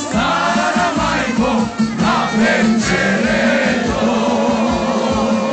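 Live band music with a man singing into a microphone over it, and a steady low note held underneath.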